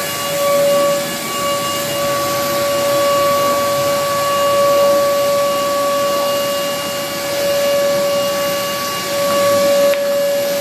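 Vacuum cleaner running steadily while its floor nozzle is pushed over carpet: a constant rush of air with a steady whine held at one pitch.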